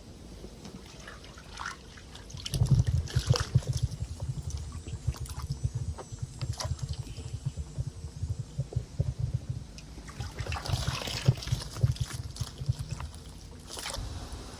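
Water sloshing, trickling and splashing in a tub of koi fry being netted for culling, busiest from a couple of seconds in until near the end.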